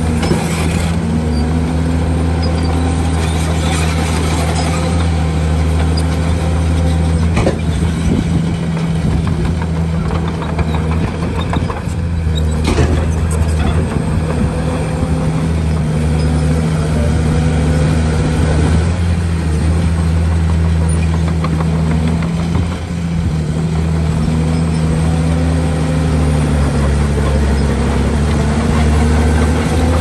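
Heavy diesel engine of an earthmoving machine running steadily at work, its pitch rising and falling slightly, with a couple of sharp knocks along the way.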